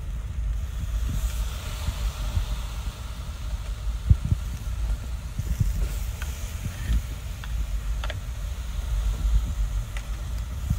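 Low wind rumble on the microphone, with a few faint crackles and pops from the charcoal fire under steaks grilling on the grate.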